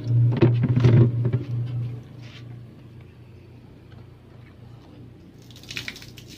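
Steady low hum of a newly replaced refrigerator compressor running normally at rated current, with irregular knocks and clatter during the first two seconds. A rushing hiss starts near the end.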